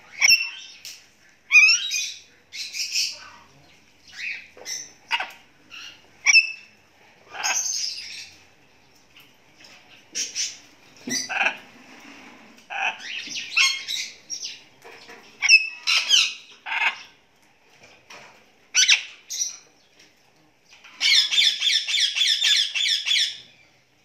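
Pet parrots squawking and chirping in short separate calls, with a fast run of repeated calls for about two seconds near the end.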